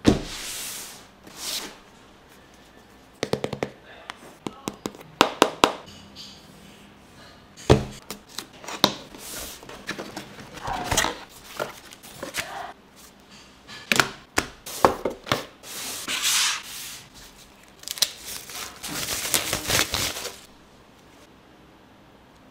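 Cardboard packaging of a Marshall Emberton portable speaker being opened and handled: irregular taps, clicks, scrapes and rustles as the box and inserts are slid apart, with a longer sliding scrape near the end.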